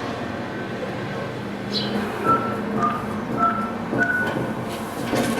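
Electronic keypad beeping as a code is punched in: four short beeps about half a second apart.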